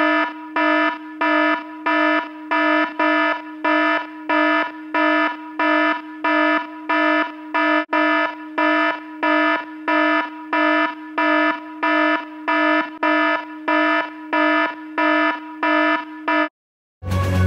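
Electronic alarm buzzer beeping evenly, about two buzzy beeps a second, that stops abruptly near the end; music starts just after.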